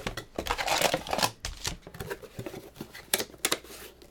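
A cardboard box and the foil-wrapped card pack inside it being handled: crinkling and rustling for about a second, then scattered taps, with two sharp clicks about three seconds in.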